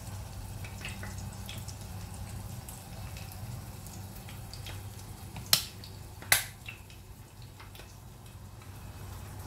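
Steady low hum with scattered faint ticks, broken a little past the middle by two sharp clicks less than a second apart.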